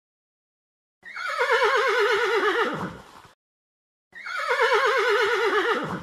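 Horse whinnying twice. Each neigh lasts about two seconds, starting high and dropping into a rapid quavering tremble before it fades.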